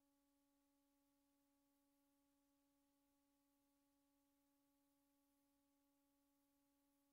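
Near silence: only a very faint, steady hum made of a few even tones, over faint hiss.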